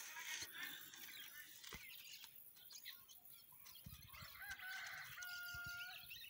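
A rooster crowing faintly, rising into one long held note about five seconds in, over scattered chirps of small birds.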